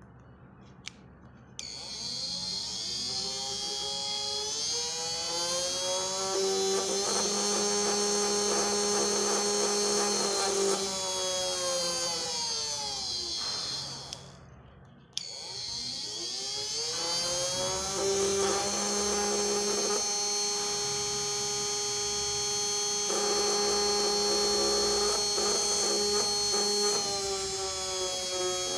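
12-volt brushed DC motor run through a knob speed controller, spinning up as the knob is turned and whining at a steady speed. It winds down and stops, starts again about a second later, and speeds up once more, with its pitch stepping as the speed is adjusted and dropping near the end.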